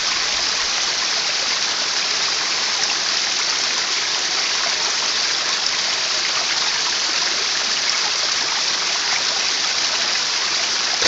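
Small stream of water running down over rocks in little cascades: a steady rushing splash that does not change.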